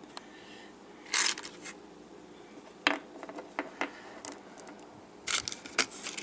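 Small metal hardware being handled: a series of light clicks and clinking rattles. The loudest clatter comes about a second in, and a quick cluster of them near the end.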